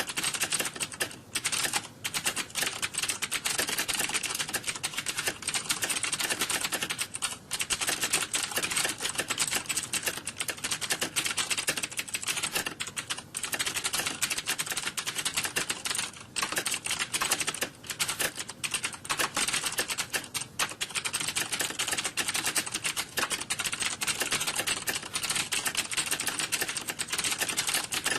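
Rapid, continuous typing on computer keyboards: a dense run of key clicks with only a few brief pauses.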